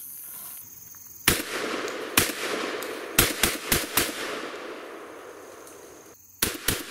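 Beretta 1301 Tactical 12-gauge semi-automatic shotgun being fired. Two single shots, then four quick shots, and after a short pause a fast string of three, each shot trailing off in an echo.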